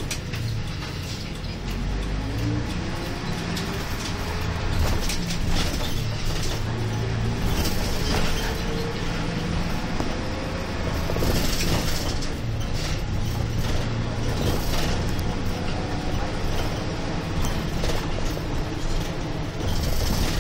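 Inside a route bus: the diesel engine and drivetrain run under a steady low rumble with road noise, and a whine rises in pitch over the first ten seconds or so as the bus accelerates. Light rattles and clicks come from the cabin.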